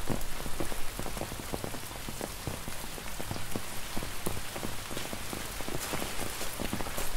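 Rain falling on a glass roof and windows: a steady hiss with many separate drops ticking against the glass.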